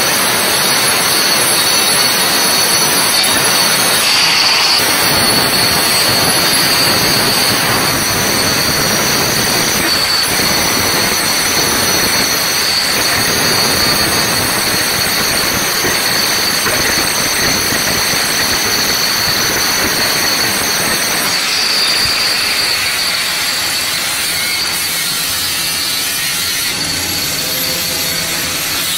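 Electric angle grinder running and grinding on an aluminium pipe, a steady high-pitched whine over a loud hiss, easing slightly in the last few seconds.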